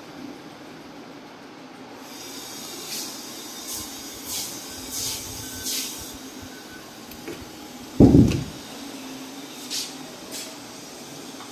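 A steel door with a lever handle being handled: light scraping and rustling, then one heavy thud about eight seconds in.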